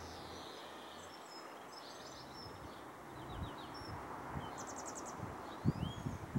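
Distant Class 66 diesel freight locomotive approaching, a faint rushing rumble that grows from about halfway, with songbirds chirping and trilling over it. Two short low thumps near the end.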